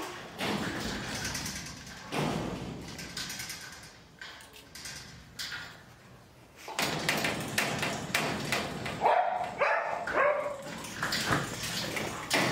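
Several kennelled German pointing dogs barking and whining, mixed with thumps and taps of dogs jumping against the wire-mesh kennel doors. The barking is quieter for a few seconds, then picks up again about halfway through.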